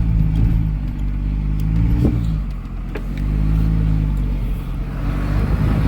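Old Dodge pickup's engine running steadily under load while towing a combine header trailer, with a brief dip in its sound about two seconds in. The truck has no power and its check engine light is on: something is wrong with the engine.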